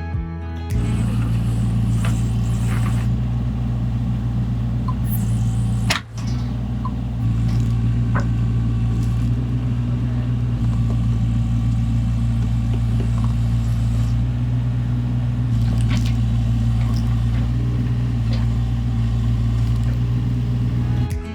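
An engine running steadily at a constant speed, with a few light clicks and knocks over it and a brief drop about six seconds in.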